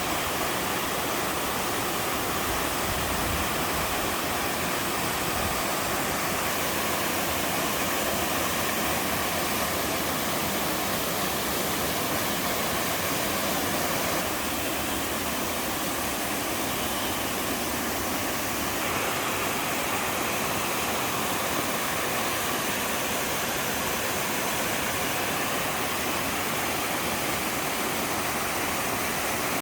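Small waterfall in a mountain valley stream, water pouring and splashing in a steady, even rush.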